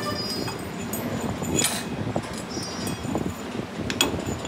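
Steel clinking and clanking of hand tools and parts at a lathe's four-jaw chuck: a chuck key working the jaws, and a rough axle-housing piece held in tongs being set against the machined steel bush. There is a short scrape about one and a half seconds in and a sharp metallic clank near the end.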